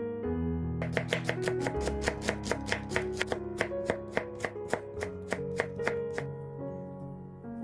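Kitchen knife chopping carrot into thin strips on a wooden cutting board: quick, even strokes about five a second that stop about six seconds in. Soft background music plays underneath.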